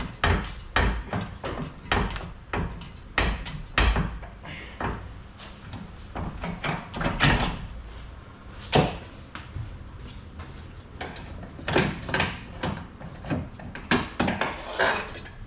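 Irregular clunks and knocks, about one or two a second, from a Toyota Corolla's steering rack being worked out of the car by hand, knocking against the surrounding parts as it is pulled through.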